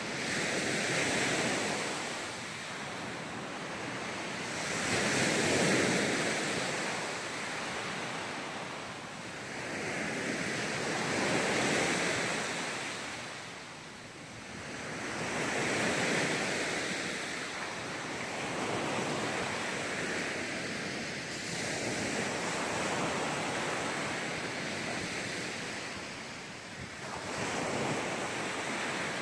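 Small waves breaking on a sandy beach, the surf swelling and falling back every five seconds or so.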